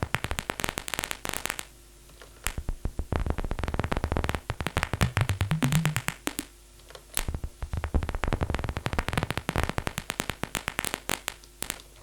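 Synthesized paper-crumpling sound from the Vital software synth: dense flurries of crackling clicks, played three times with short pauses between. A brief low rising tone sounds in the middle run.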